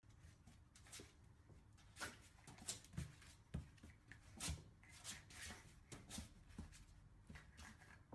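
Faint, scattered light taps and scrapes: a French bulldog puppy's paws and claws on a wooden floor and against mirror glass as it plays.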